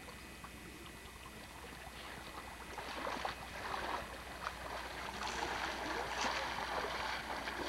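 Lake water splashing and sloshing around people standing waist-deep, growing louder a few seconds in.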